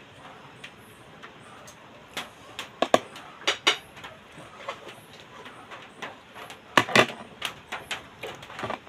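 Dishes and utensils clinking and knocking as they are handled at a kitchen counter, in an irregular run of sharp knocks, the loudest about three and seven seconds in.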